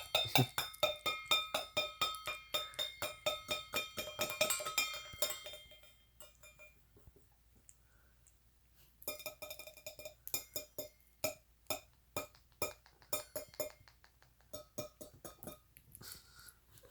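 Quick runs of ringing, clinking strikes, each ringing at the same pitch. They stop for about three seconds partway through, then resume more sparsely.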